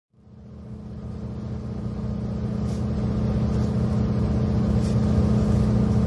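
KiHa 183 series diesel railcar engines idling with a steady low throb, fading in at the start.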